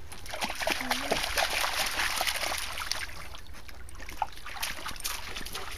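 An Inuit dog wading in a shallow stream, its paws splashing and stirring the water, with a steady run of small splashes and trickles, busiest in the first half.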